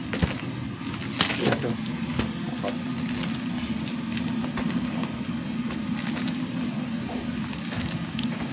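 Plastic bag of oyster-mushroom spawn crinkling and rustling as the spawn is shaken into baglog necks by hand, with many small crackles and a louder rustle about a second in. A steady low hum runs underneath.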